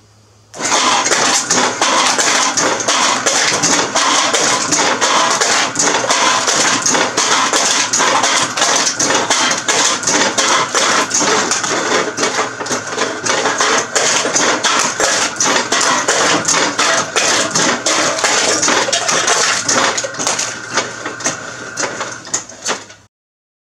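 Homemade electric-motor can crusher running, its crank-driven ram crushing drink cans fed down from a stacked tube one after another: a steady motor hum under a continuous metallic clatter and crunching. It starts about half a second in and cuts off suddenly near the end.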